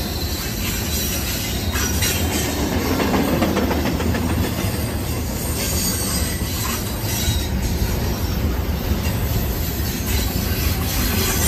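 Train rolling past: a steady low rumble of steel wheels on rail, with occasional clicks over rail joints and some high wheel squeal.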